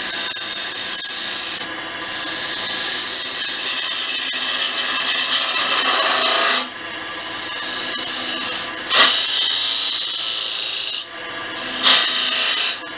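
Spindle gouge cutting a spinning sycamore blank on a wood lathe, a steady hissing cut as the base is trimmed down. The cut breaks off briefly three times as the tool comes off the wood.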